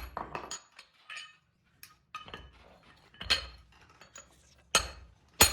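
A hammer striking metal parts: sharp ringing blows at an uneven pace, with lighter clinks between them and three heavy blows in the second half.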